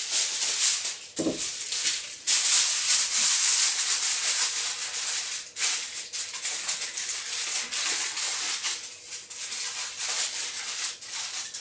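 Aluminium foil crinkling and rustling as a sheet is spread, folded and pressed down over fish on a baking tray, in uneven spells of crackling.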